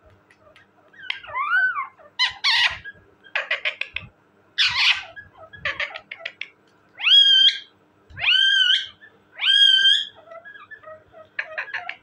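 Indian ringneck parakeet calling: a run of short harsh squawks and clicks, then three loud rising calls about a second apart, followed by a few quick clicks near the end.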